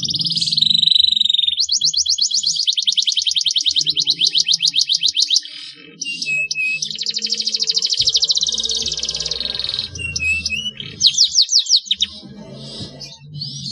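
Domestic canary singing a long, unbroken song of fast high trills and rattling rolls, with a brief pause about six seconds in.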